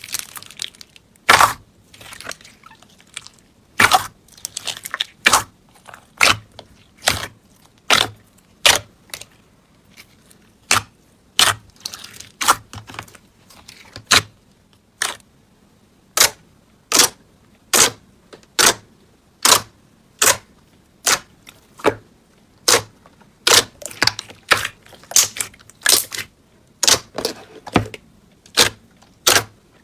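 Slime being pressed and poked by hand, giving sharp, wet popping clicks at a fairly even pace, a little more than one a second.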